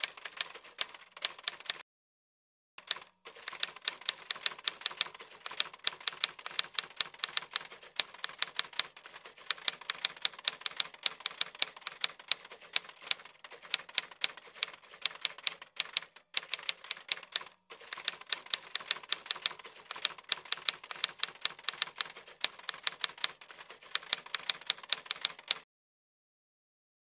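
Typewriter keys clacking in quick runs of sharp clicks as text is typed out, with a few short pauses; the typing stops shortly before the end.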